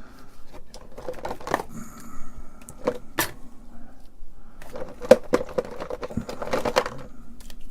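Rummaging through a bin of old computer ribbon cables: plastic connectors clicking and knocking against each other at irregular intervals, with the cables rustling.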